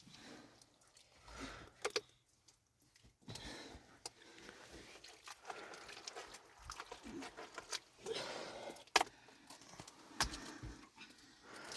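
Irregular rustling with scattered sharp clicks and knocks, the loudest knocks about nine and ten seconds in.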